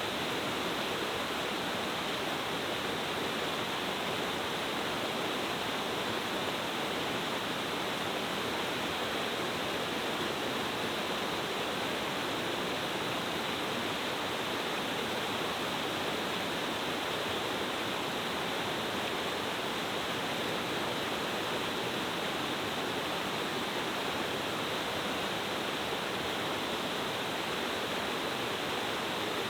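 Multi-tiered cascade waterfall rushing steadily, water falling in several drops over rocks into a mountain stream.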